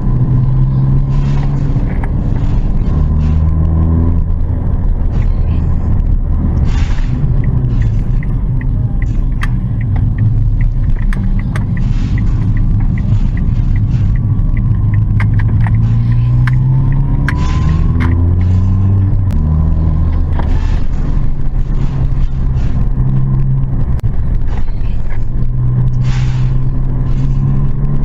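Car engine running under way, its pitch climbing and then dropping back in steps as an automatic transmission shifts gears. A run of light ticks comes partway through.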